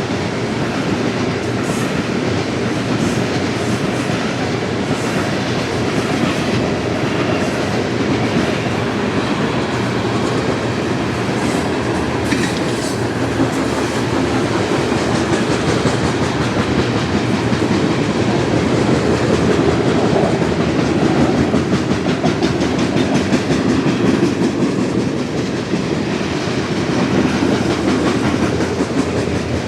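Union Pacific coal train's freight cars rolling past: a steady, loud rumble of steel wheels on the rails, with a clickety-clack of wheels over rail joints.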